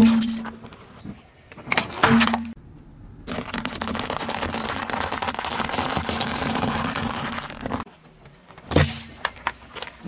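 Car tyre crushing things on asphalt: sharp cracks at the start and about two seconds in, then several seconds of dense crackling as dry tube pasta breaks under the tyre, and another crack near the end.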